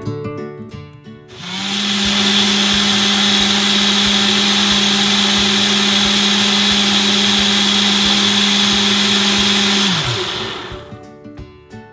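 Single-serve cup blender motor running at a steady speed, blending fruit and ice into a smoothie. It starts about a second in and near the end cuts out, its pitch falling as it spins down.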